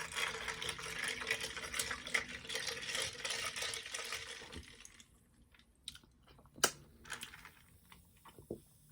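A drink being poured, a steady liquid hiss for about four and a half seconds, then a few soft clicks.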